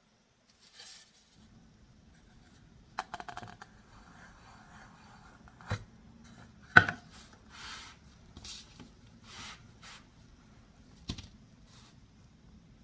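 A thin wooden toy cutting board being handled and set down on a tabletop: a quick rattle of small clicks, a single sharp knock that is the loudest sound, then several soft swishes of wood sliding and rubbing, and another click near the end.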